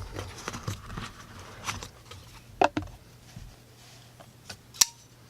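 Boker Plus Caracal folding knife being handled and opened by hand: soft rustling and light tapping, with a sharp click a little past halfway and a louder, brief ringing click near the end.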